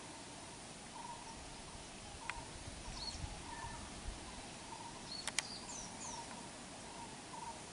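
Quiet outdoor ambience: a short call repeated about twice a second, with a few higher bird chirps in between. Sharp clicks come about two seconds in and twice in quick succession about five seconds in.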